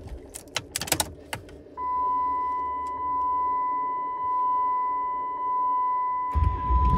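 Keys clicking in the ignition, then a steady dashboard warning chime that pulses about once a second. Near the end the 6.7L Cummins turbodiesel starts and settles into a low idle rumble.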